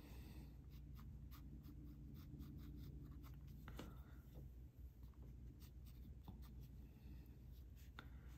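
Pencil strokes on paper while shading a portrait sketch: faint, quick, irregular strokes, many a second, with a few sharper ticks.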